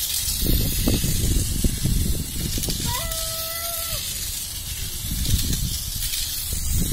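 Tamiya Mini 4WD car with a Hyper-Dash motor running laps on a plastic track: a steady high hiss from the motor and gears, with clattering as the car runs along the lanes. About three seconds in there is a single held call lasting about a second.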